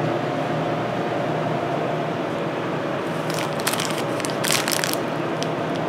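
Plastic candy wrapper of a Reese's peanut butter cup crinkling in the hands, in a run of short crackles starting about three seconds in, over a steady background hum.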